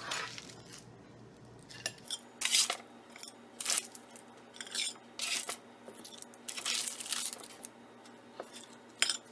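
A small metal spatula scraping and crinkling across parchment paper on a baking sheet as crispy smashed potatoes are lifted off and set on a plate, in a series of short irregular scrapes and rustles.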